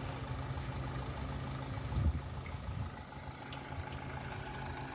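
Ashok Leyland truck's diesel engine idling steadily, with one brief louder thump about two seconds in.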